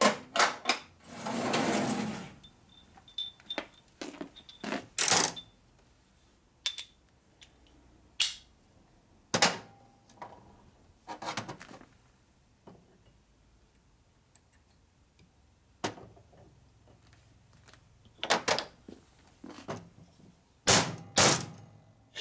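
Steel tools and parts being handled on a steel workbench: scattered separate clinks and knocks, some with a short metallic ring, and a sliding rattle of a tool drawer about a second in.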